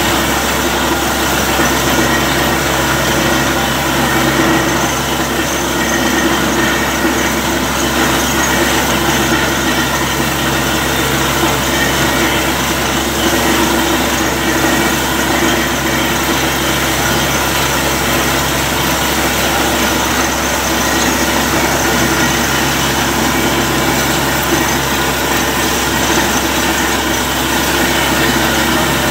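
Borewell drilling rig running steadily: its engine and air compressor make a constant drone while compressed air blows a heavy flow of water up out of the bore around the drill pipe, splashing.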